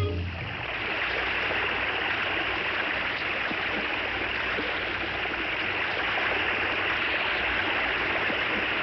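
Steady rushing of an underground waterfall, a cartoon sound effect, coming in as the orchestral music stops at the very start.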